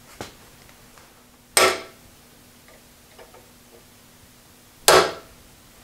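Two hammer blows on a steel taper pin in the handwheel hub of a Wells Index Model 40 milling machine, about three seconds apart. Each is a sharp metallic strike with a short ring, driving the pin home.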